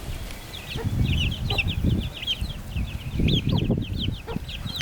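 Chicks peeping: many short, high chirps in quick succession, over a low, irregular rumbling noise.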